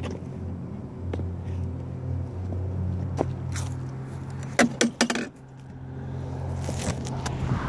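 A steady low hum, with a quick run of four or five sharp knocks and clicks close to the microphone at about four and a half to five seconds in, as a sneakered foot steps right up beside it.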